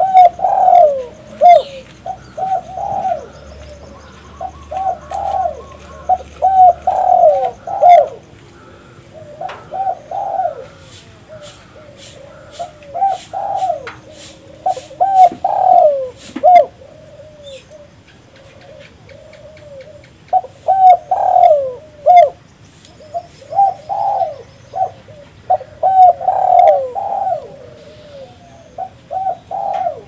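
Spotted dove cooing over and over, its calls coming in runs of several coos separated by short pauses.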